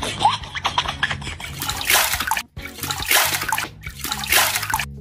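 Water poured from a mug over a person's head and splashing onto a concrete floor during a bath, in several loud dumps about a second apart.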